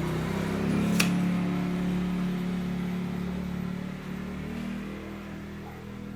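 A motor running with a steady low hum that slowly fades away, with a sharp click about a second in.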